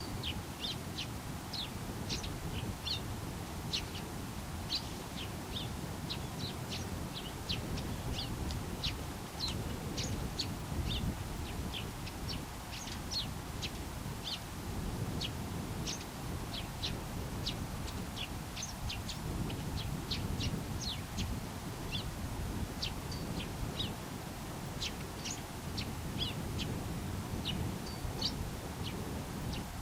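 Eurasian tree sparrow giving short, sharp chirps, about one or two a second in an irregular string, over a steady low rumble.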